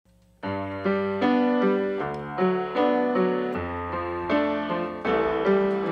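Piano-like keyboard intro of a song: chords and notes struck about every half second after a brief silence at the start.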